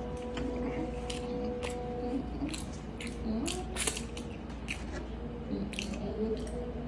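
Close-miked eating sounds: chewing and lip smacking, with a scattering of short, sharp wet clicks.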